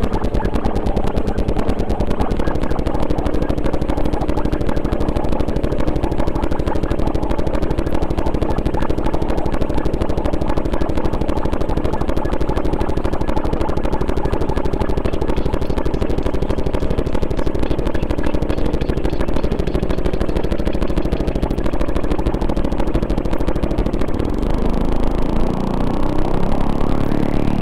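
Experimental electronic music: a dense, rapidly pulsing drone of held tones, with a deeper layer coming in and a tone gliding upward near the end.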